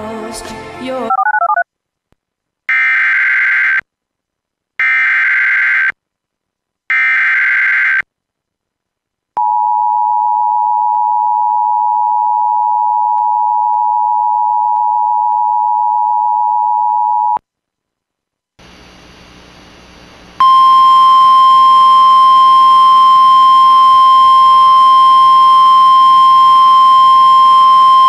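Emergency Alert System tones: three short bursts of digital header data warbling, then the two-tone EAS attention signal held steady for about eight seconds. After a brief hiss, a single-pitch weather radio alert tone sounds steadily, announcing a new severe weather warning.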